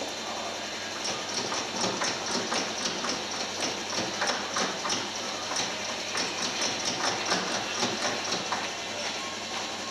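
Coin-operated kiddie ride in motion, giving a quick, even clacking rhythm of about three clacks a second that stops shortly before the end.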